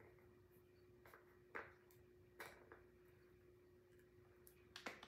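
Near silence: a steady faint electrical hum with a few faint, short clicks and taps of small objects being handled, the clearest about one and a half seconds in and near the end.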